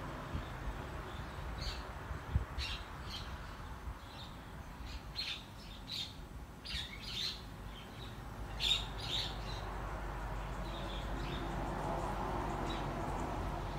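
Small birds chirping: many short, high chirps scattered through, thickest in the middle, over a low steady background hum.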